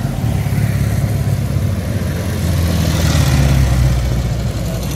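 Motorcycles ride past one after another at low speed, their engines running with a steady low drone. The sound swells as one bike comes by closest about three seconds in.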